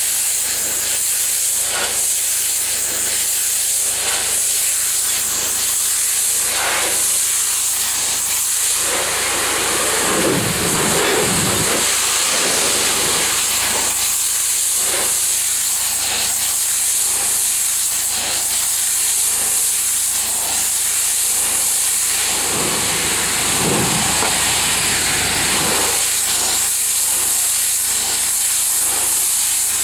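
Pressure washer spraying a high-pressure water jet onto a pool deck: a loud, steady hiss over a low hum, with deeper swooshes about ten seconds and again about twenty-three seconds in.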